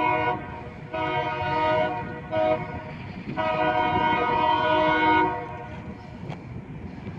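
A Loram rail grinder's multi-chime air horn sounds the grade-crossing signal: the tail of a long blast, then a long, a short and a final long blast. A low rumble from the moving train runs underneath.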